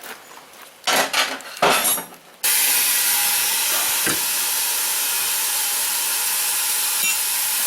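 A few sharp metal clanks, then a loud, steady hiss of compressed air that starts suddenly about two and a half seconds in and cuts off abruptly near the end, as the rear tractor tire's inner tube is aired up.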